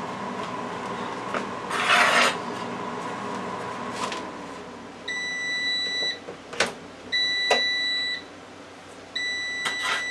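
Power AirFryer XL oven beeping at the end of its cooking cycle: three long beeps, each about a second, roughly two seconds apart. A steady hum stops about four seconds in, and a couple of sharp clicks come as the door is opened.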